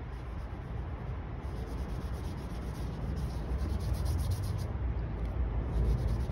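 Paintbrush rubbing and scrubbing watercolor paint across paper, a steady soft scratching that grows a little louder toward the end.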